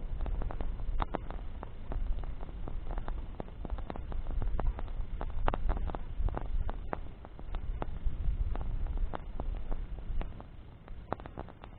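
Wood bonfire crackling, with frequent irregular sharp pops and snaps over an uneven low rumble.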